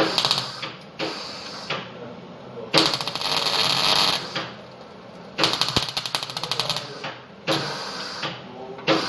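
Electric welding arc crackling in about six short bursts of a second or so each, with brief pauses between, as a hole in the exhaust is welded shut.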